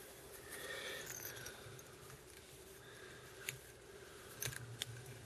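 Faint handling noise of thread and dubbing being wrapped onto a small fly in a vise, with a few soft clicks about three and a half and four and a half seconds in, over a steady low hum.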